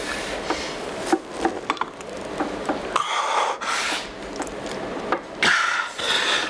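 Lifter's hard, rasping exhalations during a weight-training set, two of them about three and five and a half seconds in. Light clicks and knocks of gym equipment come between them.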